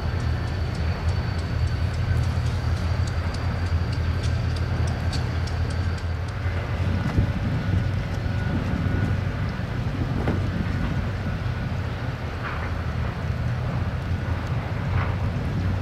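Diesel freight locomotive running with a steady low rumble as the train moves, with a few short squeaks and knocks from the train in the second half.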